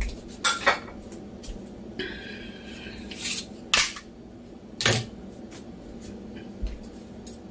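A chef's knife being handled on a plastic cutting board: a few sharp clicks and knocks as the plastic blade sheath is pulled off and the knife is set back down, with a short scraping rattle partway through.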